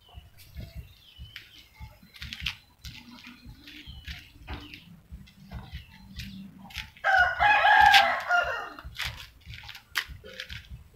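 A rooster crows once about seven seconds in, a loud call lasting about a second and a half. Around it are soft scuffling thumps and faint high chirps.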